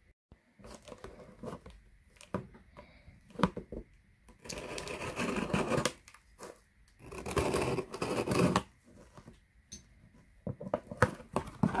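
Cardboard shipping box being handled and opened: light knocks and taps of the box and hands, and two longer rasping stretches about four and a half and seven seconds in as the packing tape on the seam is worked open.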